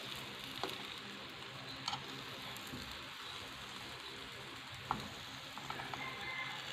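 Beaten egg frying in margarine in a pan: a soft, steady sizzle, with a few light clicks as the omelette is rolled.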